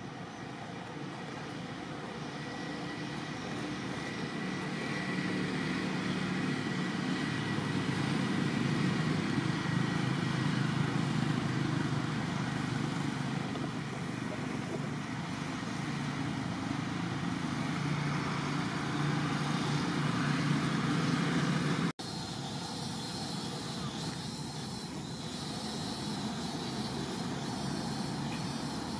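Distant engine drone, steady and low, swelling over the first several seconds and holding, then cut off abruptly about three-quarters of the way through, leaving a quieter steady background.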